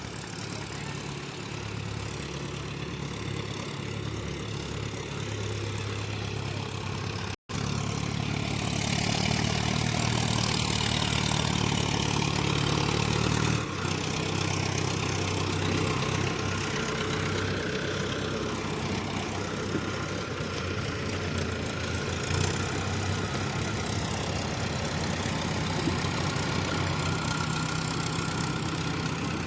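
Diesel engine of heavy earthmoving machinery running steadily. The sound breaks off for an instant about seven seconds in, runs louder for the next several seconds, then eases back a little.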